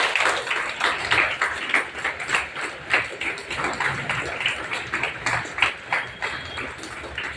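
Audience applauding, many hands clapping unevenly, thinning out near the end.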